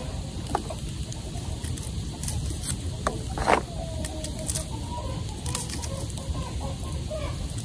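Chickens clucking, with one short, louder squawk about halfway through and a wavering drawn-out call after it, over a steady low background noise.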